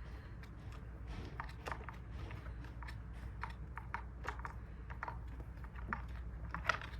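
Scattered light clicks and taps of small parts and a tool being handled on an RC truck's motor mount, irregular and a few each second, over a low steady hum.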